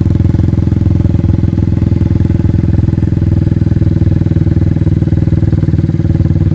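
Honda CBR 125's single-cylinder four-stroke engine idling steadily through an aftermarket Devil exhaust silencer. It is loud and even, with a quick regular pulse and no revving.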